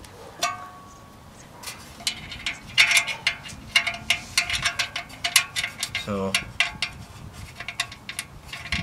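Quick, irregular metallic clicking and ticking as the brass hub of a condenser fan blade is worked onto a motor shaft and its square-head set screw turned by hand. A short ringing metal ping about half a second in.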